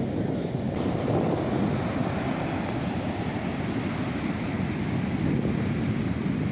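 Strong wind buffeting the microphone over the steady rumble of heavy surf.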